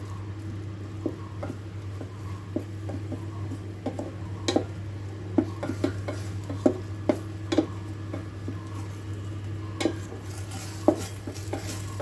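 A utensil stirring and scraping egg inside an electric kettle, with irregular clicks and taps against the pot, over a steady low hum.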